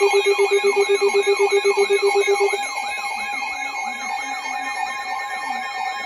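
Several weather alert radios sounding their alarms at once for a severe thunderstorm warning. A fast low beeping from one radio stops about two and a half seconds in, while a repeating falling siren-like sweep and steady high alert tones keep going.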